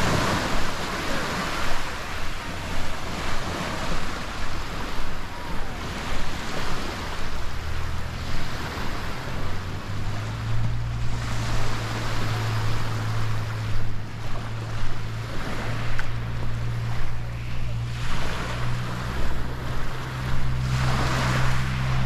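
Sea waves washing onto the beach, swelling and fading every few seconds, with wind noise on the microphone. From about ten seconds in, a steady low drone joins them.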